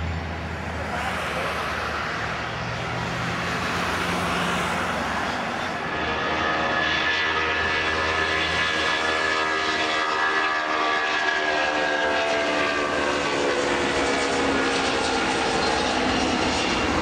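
Boeing 757 turbofan engines: first a steady low rumble while the aircraft taxis, then, from about six seconds in, a louder jet whine of several stacked tones at take-off power as it runs down the runway and lifts off.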